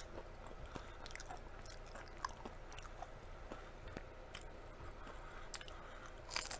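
Faint close-miked chewing and biting of crispy deep-fried chicken, with scattered small crunches and mouth clicks. There is a sharp click at the start and a short cluster of crunches near the end.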